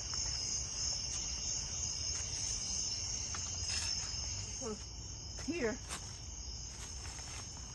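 Crickets chirping in a steady, high-pitched chorus.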